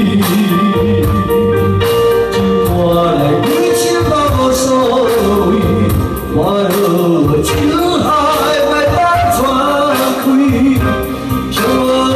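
A man singing into a microphone over his own electronic keyboard accompaniment, with sustained keyboard chords and a steady drum-machine beat.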